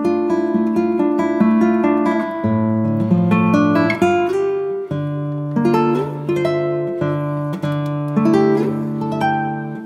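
Background music of strummed acoustic guitar, with a steady rhythm of about two strums a second over changing chords.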